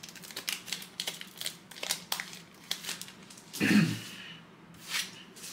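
Trading-card pack wrappers crinkling and tearing, with quick clicks and rustles of cards being handled. One brief louder, lower sound comes a little past the middle.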